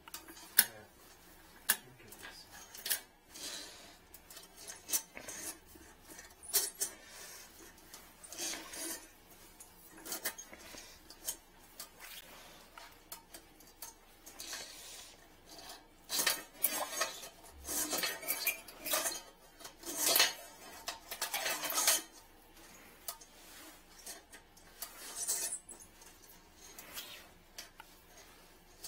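Scattered clicks, clinks and short scrapes of a metal drain-retrieval wire being worked down a porcelain toilet, with a busier run of scraping past the middle.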